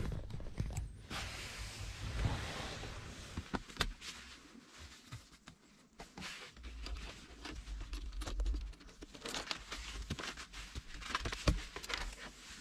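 Rustling and scattered light clicks of hands pulling and feeding a thin wire behind a car's dashboard trim, with a brief low rumble around the middle.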